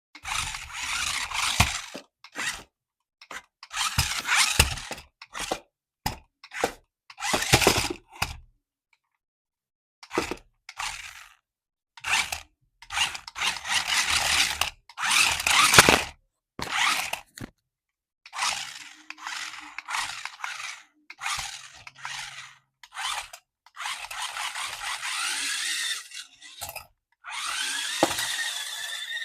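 Packaging being handled and unwrapped: bursts of crinkling, scraping and rustling with short silent gaps between them. Near the end comes a rising whine.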